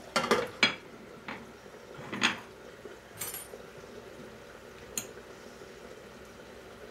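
Kitchen clatter of a pot lid and wooden spoon on a stainless pot as the lid is lifted and a piece is scooped out: a cluster of quick clinks and knocks at the start, a louder clink about two seconds in, then a single sharp tick near five seconds.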